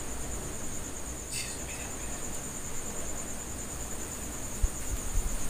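Crickets chirping in a steady, high, rapidly pulsing trill, with a couple of low thumps near the end.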